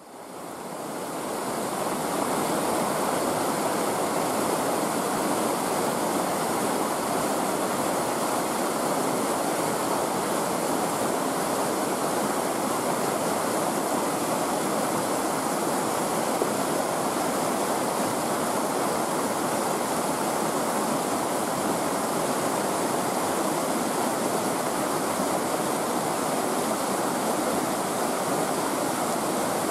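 Turbulent white water rushing through an overflow channel that is running full with its sluice gates open, a steady, even rushing that fades in over the first two seconds.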